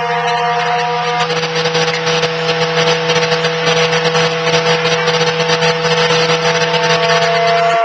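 Noise music: several held droning tones over a dense, rough hiss. The lowest drone cuts off abruptly near the end.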